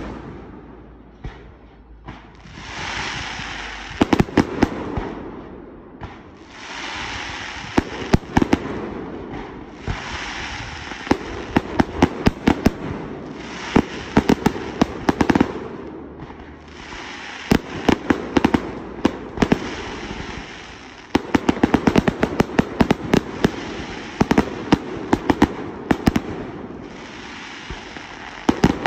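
Aerial fireworks in a display, bursting in rapid clusters of sharp bangs. Stretches of dense hiss lasting a few seconds come between the volleys, and the bangs come thickest in the second half.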